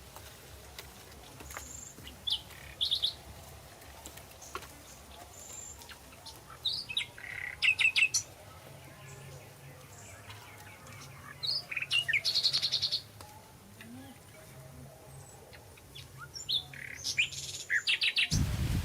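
Birds chirping in short bursts of quick repeated high notes, with faint scattered clicks between them.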